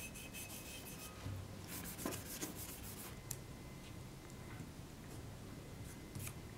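Quiet hand-handling sounds: rubbing and rustling of paper against a steel axe head, with a cluster of scraping strokes about two seconds in and a few light ticks later.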